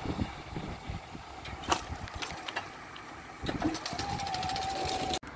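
A passing vehicle at a railway level crossing: a rumble with scattered clicks and rattles, and a steady tone for about a second near the end, before the sound cuts off abruptly.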